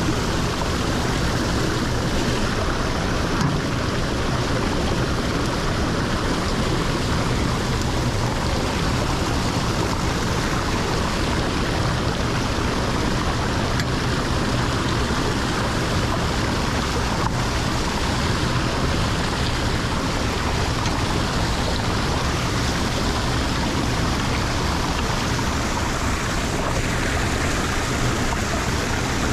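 Water rushing steadily into a lake drain, a constant loud wash with no breaks.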